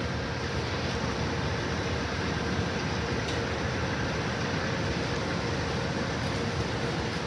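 Amtrak passenger train at the station making a steady rumble with a faint steady hum.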